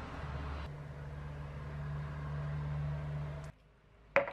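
A steady low mechanical hum that stops abruptly, followed a moment later by a single sharp click.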